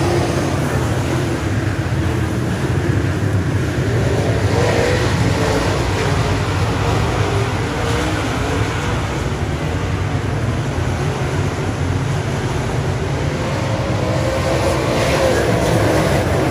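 A pack of dirt late model race cars' V8 engines running hard around a dirt oval. The sound is loud and steady, with engine pitches wavering up and down as the cars come past.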